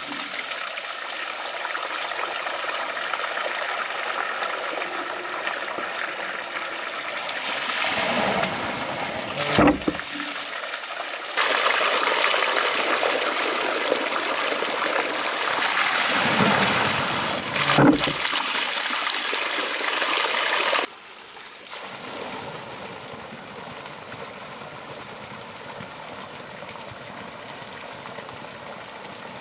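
Water running steadily from a bamboo pipe into the wooden trough of a monjolo water-powered hammer. Twice, about 10 and 18 seconds in, the wooden pestle drops into the log mortar with a dull knock. About two-thirds through, the water sound falls to a fainter steady rush.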